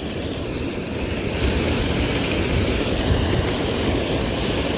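Steady rushing noise of water jetting from the dam wall's outlets and splashing into the river below.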